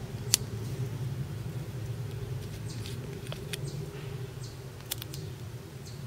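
Small metal capsule peanut lighter being handled and unscrewed: a few faint, sharp clicks and ticks over a steady low background hum.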